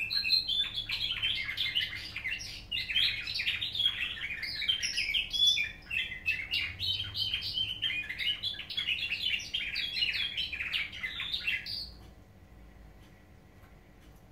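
Domestic canary singing a long, continuous nightingale-style song of fast trills and chirps, which stops near the end.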